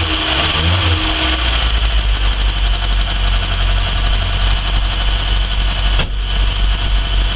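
1981 Ford Cortina MK5's engine running on the choke just after a cold start from seven months dormant, settling into a steady idle about a second and a half in. A single click sounds about six seconds in.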